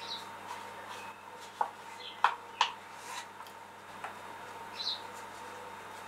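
A metal teaspoon clicking against a plastic cup and a ceramic bowl while scooping out thick rice syrup, with three sharp clicks close together in the middle and a few lighter ticks. A few faint high chirps come at the start and near the end.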